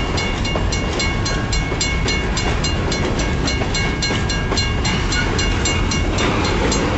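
Long BNSF grain train of hopper cars rolling past with a steady rumble, while a level-crossing bell rings in quick, even strokes, about three to four a second.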